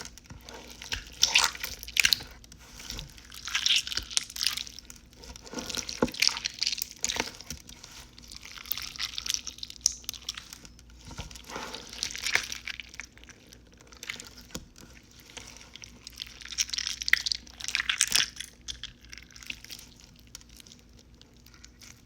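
Sticky slime being worked and scraped out of the kit's skillet mold with a spatula: irregular squelching, wet clicks and scraping, dying down near the end.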